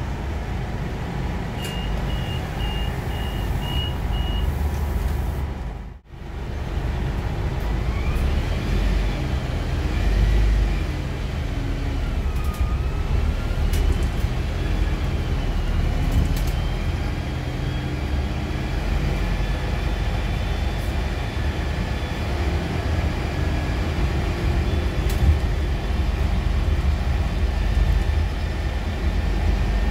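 Cabin sound of a Scania Citywide II LF CNG city bus under way: the steady low rumble of its 9-litre five-cylinder gas engine and the road, with a faint high whine that rises and falls in pitch as the bus speeds up and slows. Near the start a string of six short high beeps, about two a second, and about six seconds in the sound drops out for a moment.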